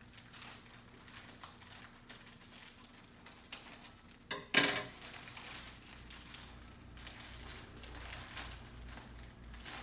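Rustling and crinkling of mail packaging being handled and opened, with one loud sharp sound about halfway through.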